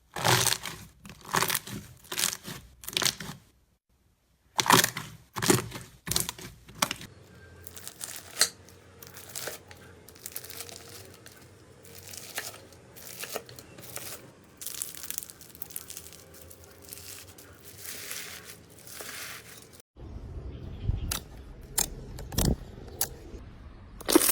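Slime being handled by hand, giving runs of sharp crackles and pops. The crackling is loud and dense at first, softer and more scattered in the middle, then changes abruptly about twenty seconds in to a deeper sound with sharp clicks.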